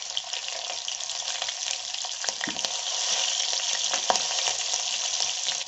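Chopped green chillies and cumin seeds sizzling in hot oil in an iron kadhai: a steady frying hiss with a few sharp pops, a little louder in the middle.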